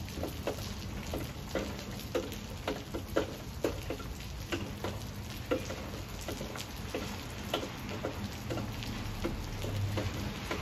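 Rain falling, with single heavy drops tapping sharply and irregularly close by, several a second, over a steady hiss and a low rumble.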